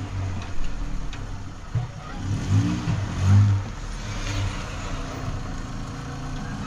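A small pickup truck's engine running as the truck rolls slowly forward, with the engine revving up and down briefly a couple of times around the middle.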